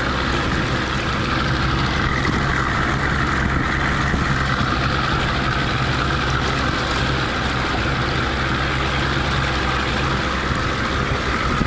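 Motorboat engine running steadily under way: a steady low hum with a hiss over it.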